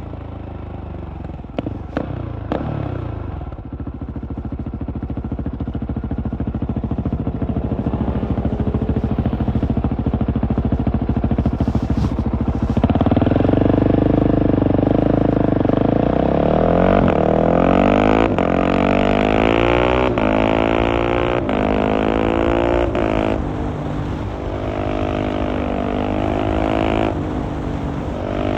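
Husqvarna 701's single-cylinder engine through a LeoVince Nero exhaust, pulling at low revs with a few sharp clicks about two seconds in. About halfway it accelerates hard, the note climbing and dropping back with each quickshifter upshift, several shifts in quick succession, then holds a steadier pace before rising again at the end.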